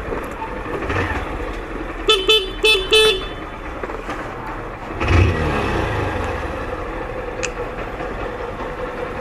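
Motorcycle horn beeped four times in quick succession, short toots over the bike's engine running at idle.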